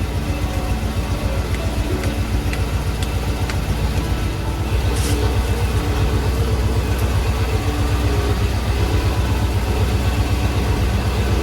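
Chevrolet G30 van's engine idling steadily after a water pump replacement, left running so the coolant circulates.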